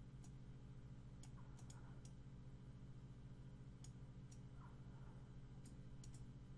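Faint computer mouse clicks, about ten spread irregularly and some in quick pairs, over a low steady hum.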